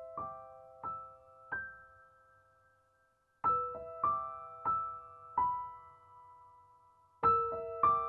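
Background music: a slow melody of single piano-like keyboard notes, each struck and left to ring out and fade, in short phrases of a few notes with a pause between them.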